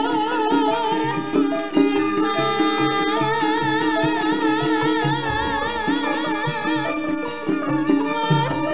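A sinden's female voice singing a Javanese song with a wavering vibrato on long held notes, over gamelan accompaniment with regular low kendang drum strokes.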